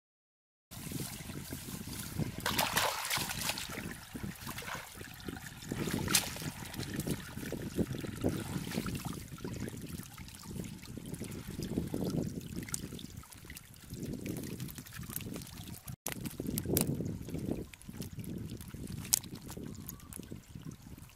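Water trickling and dripping as a woven bamboo fish trap is handled and lifted out of shallow water, with irregular knocks and scrapes from the trap. It starts a moment in.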